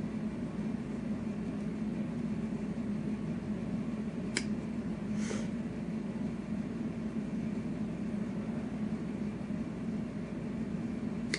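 Two short snips of flush cutters cutting small plastic parts off a model-kit sprue, about a second apart, over a steady low hum.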